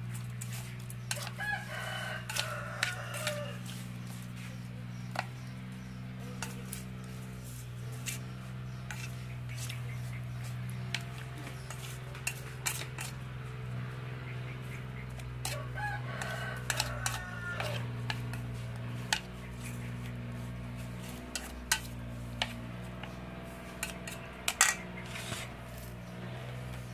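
Chopsticks clicking and tapping against an aluminium bowl as fish are turned in their salt and lemongrass marinade, the sharpest clicks near the end. A rooster crows twice, about two seconds in and again past the middle, over a steady low hum.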